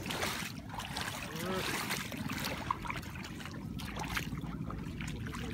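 Steady outdoor rushing noise of flowing floodwater and wind, with a faint voice briefly about a second and a half in.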